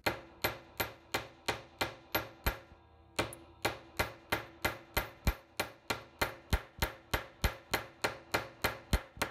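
Planishing hammer striking a copper piece on a steel bench block in quick, even blows, about four a second with a brief pause about three seconds in; each blow has a short metallic ring. The overlapping blows are planishing a hammered texture into the metal.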